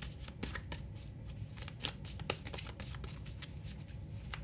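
A deck of oracle cards being shuffled by hand: a quick, irregular run of papery card slaps and snaps, several a second.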